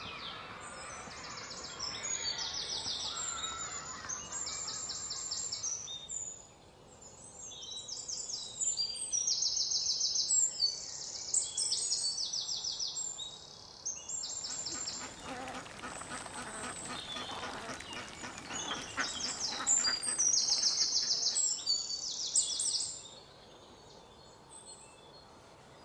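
Birds singing in repeated rapid high trills. Lower, rougher calls join in from about 15 to 22 seconds in. The sound drops away to quieter background just before the end.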